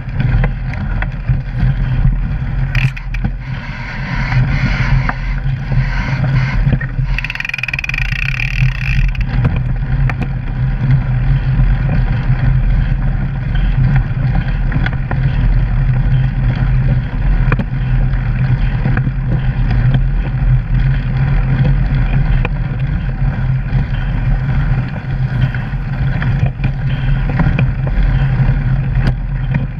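Steady rumble and rattle of a mountain bike rolling over a rough gravel forest trail, picked up by a camera mounted on the bike, with frequent small clicks and knocks. A brief higher-pitched squeal comes about eight seconds in.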